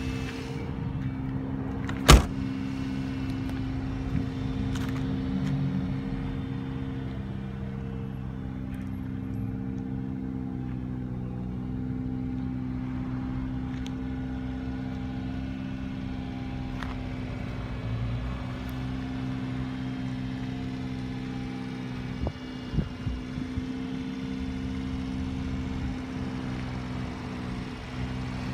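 Subaru Sambar KS4 kei truck's 660 cc four-cylinder engine idling steadily. About two seconds in, its door is slammed shut with one sharp bang, the loudest sound here.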